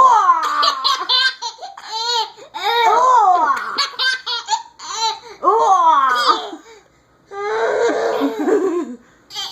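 Baby laughing hard in repeated high-pitched bursts of belly laughter, with short breaks between them and a breathier, rougher laugh near the end.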